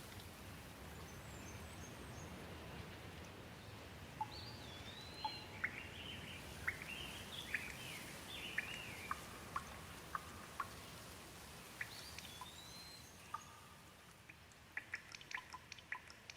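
Faint, steady rain with a bird calling in short, repeated chirps from about four to thirteen seconds in. Near the end the rain hiss thins and gives way to scattered sharp drips.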